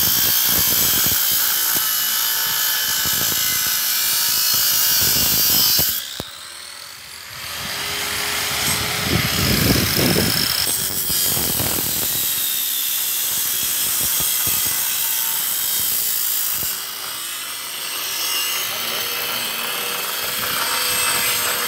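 Angle grinder's abrasive cut-off disc cutting through a steel I-beam, a harsh high-pitched grinding. About six seconds in the cut stops and the motor winds down with a falling whine; power-tool grinding noise then carries on and grows louder again near the end.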